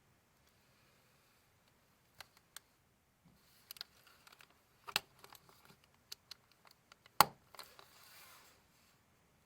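Handling sounds of a handmade paper binder file: light taps and paper rustling, with a sharp click about seven seconds in.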